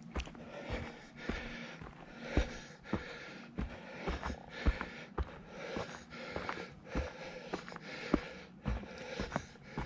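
A hiker's footsteps on a dirt and rock trail, a steady knock at walking pace, with the hiker's breathing rising and falling in between.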